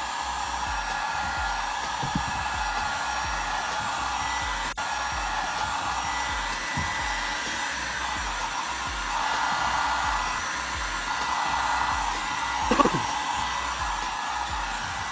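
Electric heat gun running steadily, its fan blowing hot air over carbon-fibre vinyl film to soften it so it stretches around a steering-wheel rim. A brief knock about 13 seconds in.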